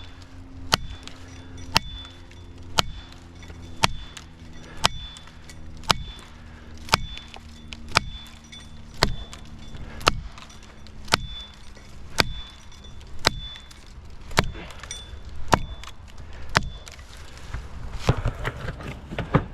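Felling wedge being hammered into the back cut of a white oak, sharp even strikes about once a second, to tip over a tree held up by a Dutchman in a misaligned notch. Near the end the strikes stop and a louder, noisier stretch builds.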